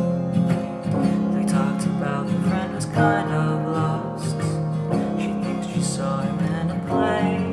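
Music: an acoustic passage of a song with no sung words, played on pitched instruments.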